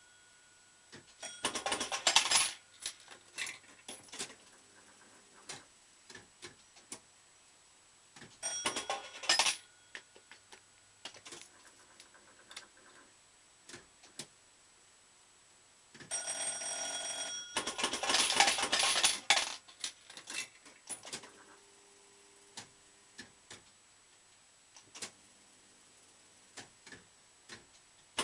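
Bell Fruit Ten Up fruit machine being played. Its reels spin and stop with scattered clicks and three loud metallic clattering bursts, and a bell-like ringing tone sounds for about a second just past halfway.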